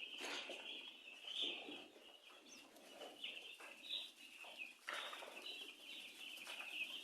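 A flock of young broiler chicks peeping in a dense, unbroken chorus, with scattered short flutters and scuffles among them.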